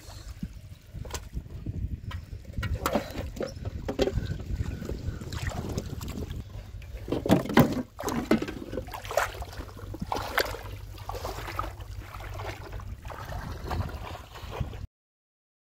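Wind rumbling on the microphone with irregular splashes and knocks, which stop suddenly near the end.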